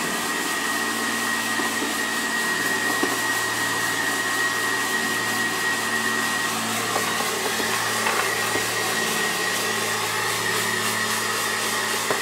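Handheld hair dryer running steadily, a rush of air over a constant motor hum and high whine, blowing the papery husks off crushed roasted cacao beans as they are winnowed.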